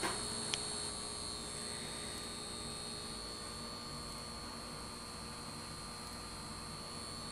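A steady droning hum with a thin high whine held over it, and one short click about half a second in.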